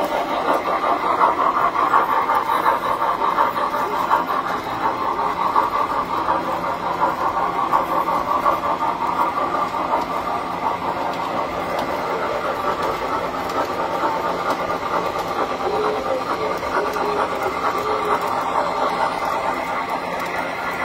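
Tinplate toy trains running on metal track: a steady rumbling clatter of wheels, a little louder in the first few seconds.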